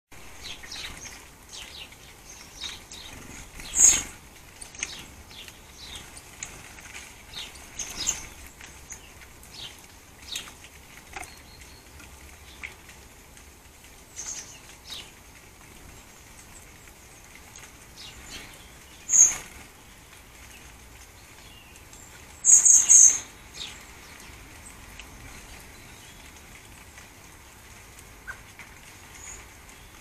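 Blue tits and great tits at hanging peanut and fat-ball feeders: scattered short high chirps, wing flutters and light taps as they come and go. Three louder sharp sounds stand out, about four seconds in, near nineteen seconds, and a quick run of several around twenty-three seconds.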